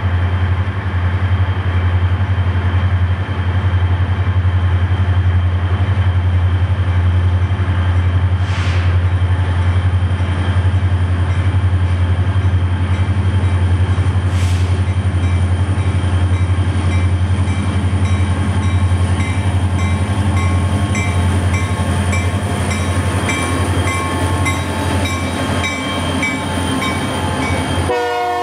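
A freight train's lashed-up EMD diesel locomotives approach and pass with a steady, loud low engine rumble. Right at the end the locomotive horn starts to blow.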